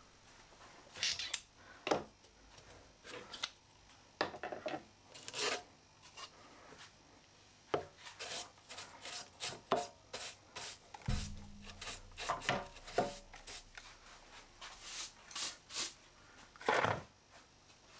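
Wood shavings and sawdust being swept off a plywood board on a drill-press table: a series of short, quiet rubbing and scraping swipes. A brief low hum comes a little past halfway.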